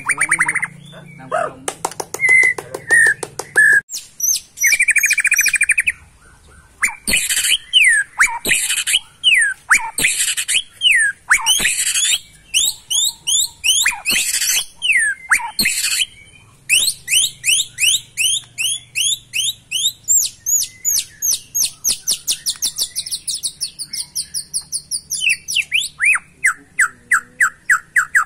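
A songbird singing a loud, varied song of whistled phrases and rapid trills. The second half is a long run of fast, repeated sweeping notes.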